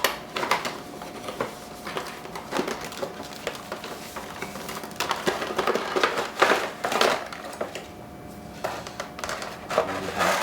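A game controller's retail box being opened and its packaging handled: irregular rustling, crinkling and light knocks, busiest about five to seven seconds in.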